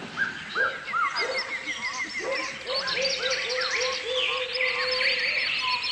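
Many birds chirping and calling over one another, with a fast run of repeated high notes early on and a row of repeated lower notes through the middle.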